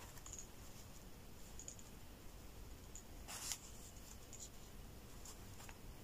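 Faint rustling and soft scratching of thin black braiding cord as fingers tie a knot in it, with one louder brushing scrape about three and a half seconds in.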